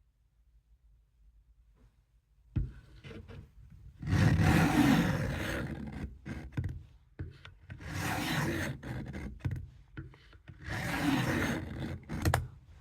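Knife blade drawn across a coarse sharpening stone: a knock about two and a half seconds in, then three long scraping strokes with short ones between.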